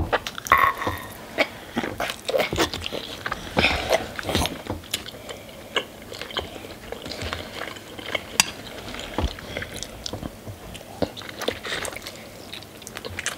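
Close-miked eating: chicken wings and ramen noodles being bitten and chewed, with many short wet clicks and smacks at irregular intervals.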